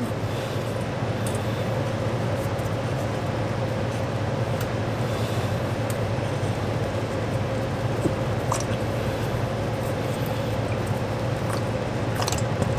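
Engine oil streaming and dribbling into a plastic drain pan as the oil filter housing is unscrewed by hand, over a steady low hum with a faint constant tone. A few faint clicks from the housing are heard.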